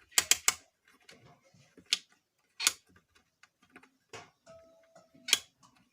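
Sharp hard-plastic clicks and knocks as a switch button is pushed and snapped into a mixer grinder's plastic body: a quick run of three clicks at the start, then single clicks spaced out, with small handling knocks between.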